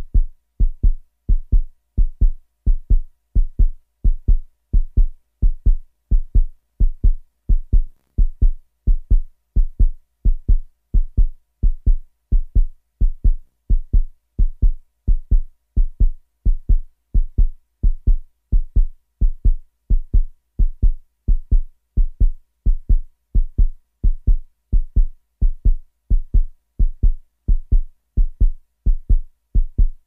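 Fast heartbeat: low, short thumps repeating in a steady, even rhythm.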